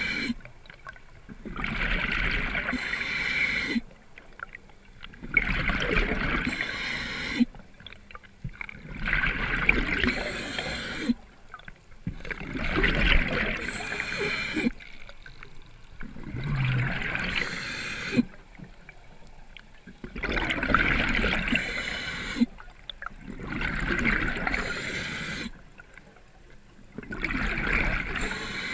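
Scuba diver breathing through a regulator underwater: a regular cycle of breaths and bubbling exhalations, about one every three to four seconds.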